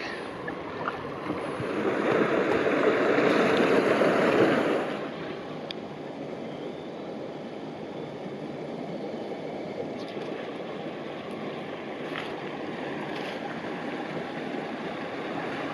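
Water rushing over a low river weir. The noise is louder for about the first five seconds, then drops to a steadier, quieter rush of flowing water.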